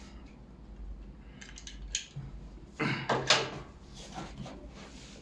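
Handling noise of a tripod's quick-release plate being fitted and seated: a few light clicks, then a louder clatter of plastic and metal parts about three seconds in.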